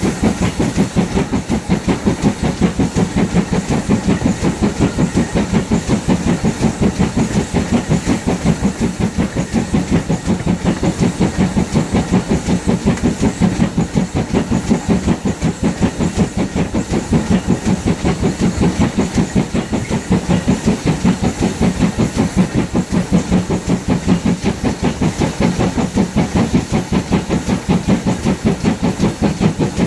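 GWR 56xx class 0-6-2 tank engine's two-cylinder steam exhaust beating in a fast, even rhythm as it hauls the train under way, heard from a coach behind with a steady hiss.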